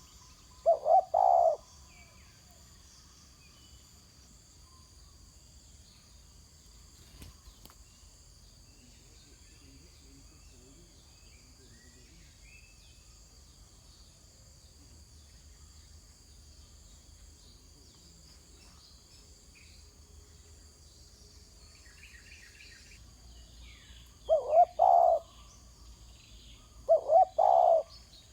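Spotted dove cooing: a short phrase of low coos about a second in, then a long pause, then two more phrases near the end. A faint steady high buzz, like insects, runs underneath.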